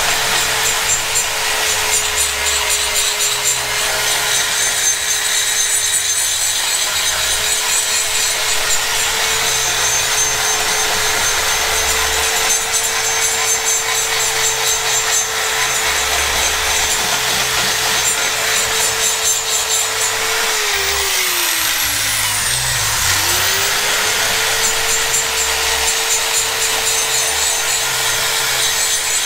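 High-speed die grinder porting an aluminium cylinder head: a steady whine over a rasping grind. The tool winds down about two-thirds of the way through and spins back up a couple of seconds later.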